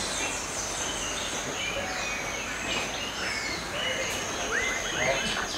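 Birds chirping and calling in short, repeated notes over a steady background hiss, with a constant thin high-pitched tone underneath; a quick run of chirps comes near the end.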